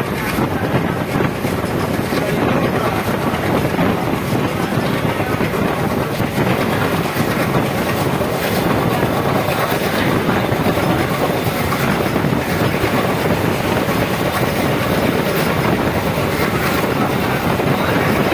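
Passenger train running along the track, heard from aboard: a steady rumble of wheels on rails with occasional clacks over rail joints.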